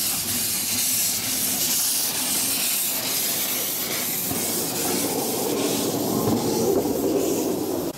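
Narrow-gauge steam locomotive passing close, its steam hissing. From about halfway the rumble of its cars rolling on the rails grows louder.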